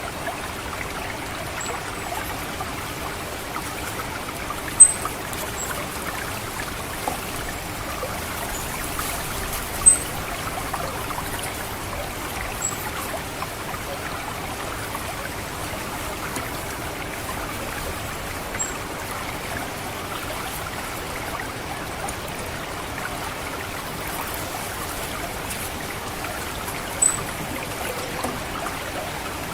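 Water trickling and gurgling steadily through a rice paddy, with a handful of very short, high 'cit' call notes of an orange-headed thrush at irregular intervals, the loudest about five and ten seconds in. These 'ngecit' calls are the kind played to lure or train the bird.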